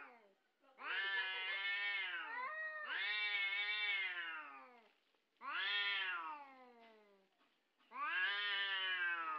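Domestic cat caterwauling in a nose-to-nose standoff with another cat: about four long, drawn-out yowls in a row that bend up and down in pitch, with short gaps between them.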